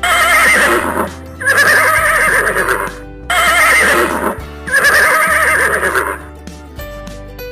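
Horse neighing four times, each whinny a wavering call of about a second, over background music.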